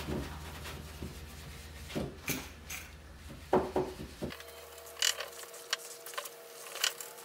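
Cloth rubbing paste wax onto a wooden mirror frame, with soft scratchy strokes and scattered light knocks of hand and cloth against the wood.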